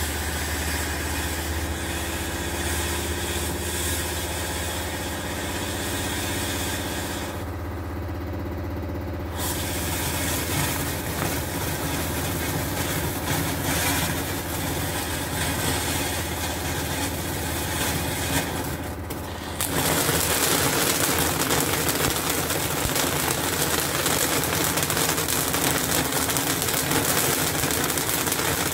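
Vintage Brocks Crackling Carnival firework fountain burning, a steady hiss full of fine, fizzy crackling, over the steady low drone of a washing machine running in the background. The hiss drops out briefly about eight seconds in, and about twenty seconds in the crackling gets louder and denser.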